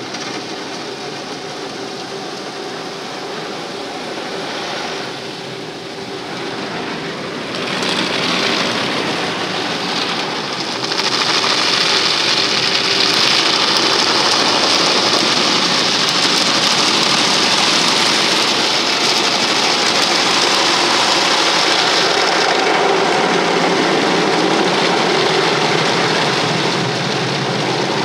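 Automatic car-wash water spray and rotating brushes scrubbing over a car, heard from inside the cabin: a steady rushing hiss with a low machine hum. It grows louder about a third of the way in, stays at its loudest for about ten seconds, then eases a little.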